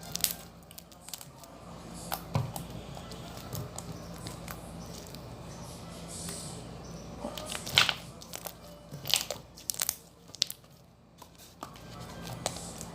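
Slime being handled, stretched and pressed by hand, giving scattered crackles, pops and clicks.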